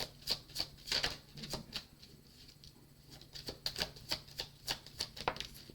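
A tarot deck being shuffled by hand: a run of quick, crisp card clicks and slaps that thins out about two seconds in, then picks up again.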